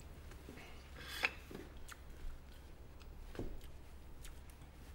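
A few faint, scattered clicks and scrapes of a metal spoon against a dish as a dessert is tasted, over a low steady hum.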